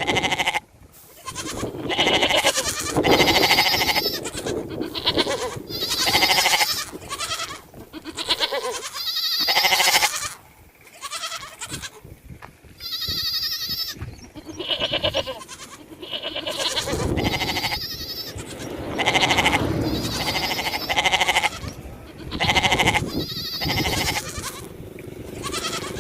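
A string of bleats from sheep or goats, one quavering call after another with short gaps between.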